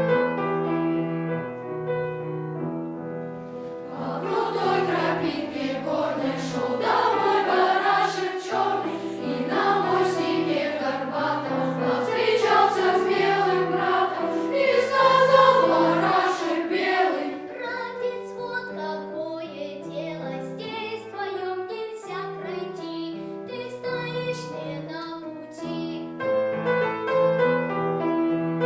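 Boys' choir singing a children's song with piano accompaniment. The piano plays alone at first, and the choir comes in about four seconds in.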